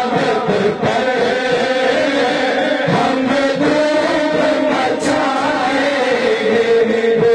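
A man singing a naat unaccompanied into a microphone, with long held, drawn-out notes. There is one brief click about five seconds in.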